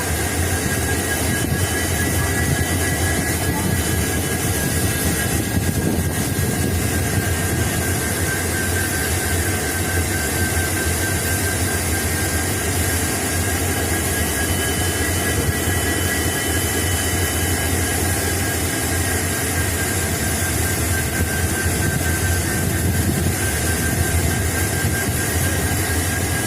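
EMD WDG4 (GT46MAC) diesel-electric locomotive engines running steadily after startup. A deep, even hum sits under a steady high whine.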